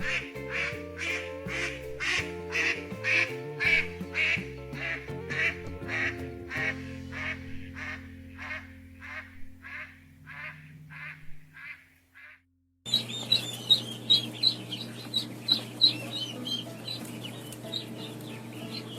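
A duck quacking over and over, about two quacks a second, over soft background music, fading out about two thirds of the way in. After a moment of silence, a different bird's higher, quicker calls start over the music.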